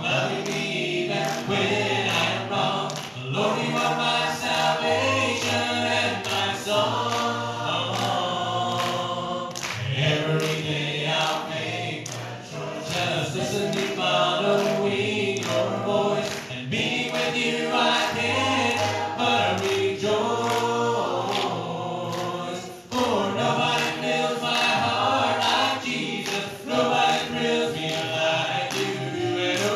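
A choir singing, with notes held for a second or two between breaks.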